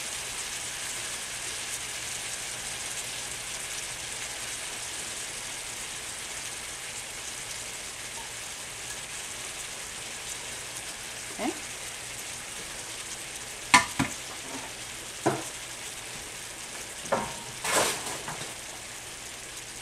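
Ground beef and sausage with crushed tomatoes sizzling in a skillet, a steady hiss that fades slightly. A few short knocks and clinks come in the second half.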